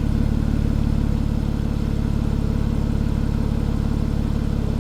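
2016 Porsche Cayenne's engine idling steadily through its sport exhaust.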